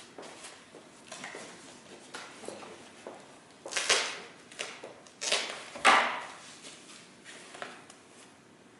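A parcel's packaging being opened, heard as a few short rustling, tearing swishes, the loudest about four and six seconds in.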